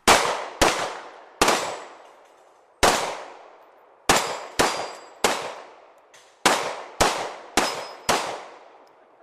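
Pistol shots fired in quick, irregular succession at steel plates, about eleven in all, each followed by a long metallic ringing clang from the struck steel.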